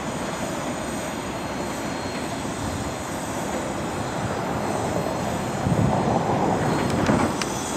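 Freight train cars rolling on the rails: a steady rumble that swells about six seconds in, with a couple of sharp clicks near the end.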